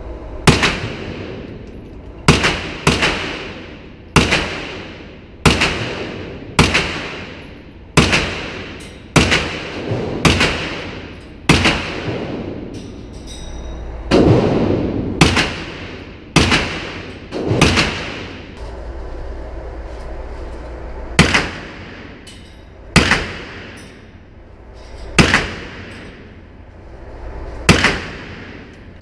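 Colt AR-pattern 9mm carbine fired in single shots at a slow, steady pace, about twenty shots roughly a second apart with a few quicker pairs. Each shot echoes briefly off the walls of the indoor range.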